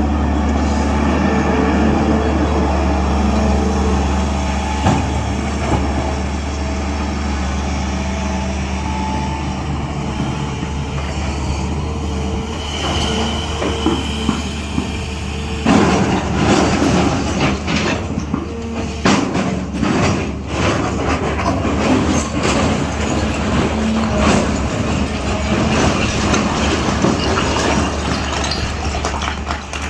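SANY 365H long-boom excavator's diesel engine running steadily under load with a constant low hum; from about halfway in, a dense clatter of knocks and scraping joins it as the bucket works in soil and rock.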